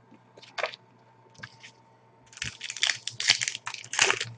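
A few light paper taps, then about halfway in a trading-card pack wrapper crinkles and crackles in rapid bursts as it is torn open by hand.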